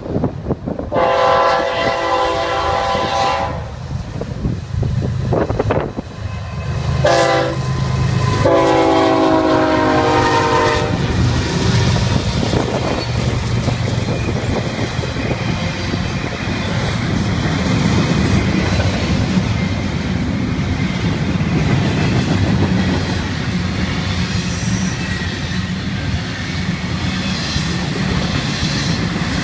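Horn of a Florida East Coast Railway GE ES44C4 diesel locomotive sounding a long blast, a short one and another long blast at a grade crossing, the last one dropping slightly in pitch as the locomotive passes. Then the locomotives rumble by and the double-stack intermodal container cars roll past with steady wheel clatter on the rails.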